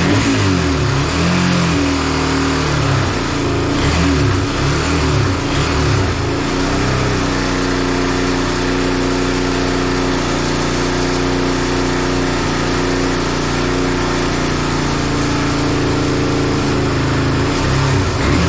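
Honda 300EX's single-cylinder four-stroke engine running, revved in repeated throttle blips for the first several seconds, then held at a steady speed for about ten seconds before being revved again near the end.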